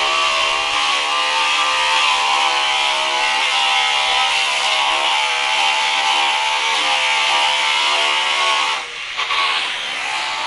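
Handheld electric power tool running steadily with a high whine as it is worked against the wooden hull of a beached fishing boat. The sound dips briefly near the end and is a little quieter after that.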